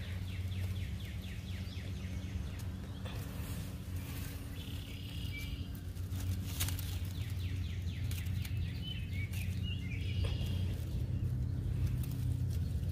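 Outdoor ambience: birds chirping intermittently, with a quick ticking trill in the first few seconds, over a steady low hum and a few faint clicks.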